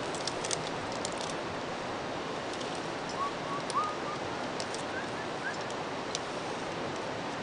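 Climbing rope and metal carabiners handled while the rope loop is worked through the anchor, giving scattered light clicks and rustles over a steady background hiss. A few faint short rising chirps come in around the middle.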